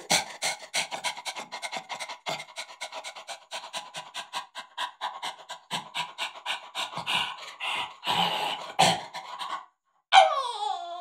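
A man panting hard and fast like a dog, several quick breaths a second. Near the end the panting stops briefly and he lets out a whine that falls in pitch.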